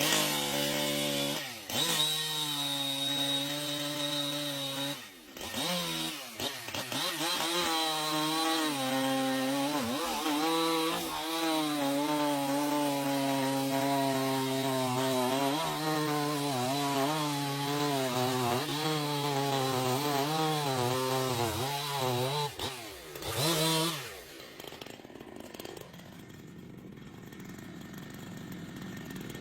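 Chainsaw running as it cuts through a tree, its pitch rising and dipping as the saw works the cut. About 24 seconds in the engine sound stops and a quieter rushing noise follows.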